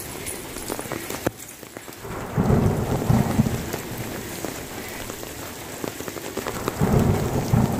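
Steady rain falling and pattering, with low rumbles of thunder about two and a half seconds in and again near the end.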